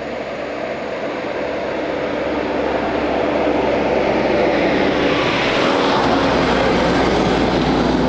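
A motor vehicle's engine running, growing steadily louder over several seconds with a broad rushing noise.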